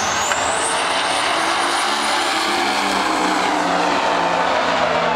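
Drag cars, one of them a twin-turbo Dodge Viper, launching and accelerating hard down the strip: a loud, steady engine noise whose pitch slowly climbs, with a high whine that rises over the first second and then holds.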